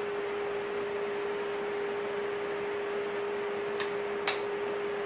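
A steady, even hum over hiss, with two sharp clicks about half a second apart near the end.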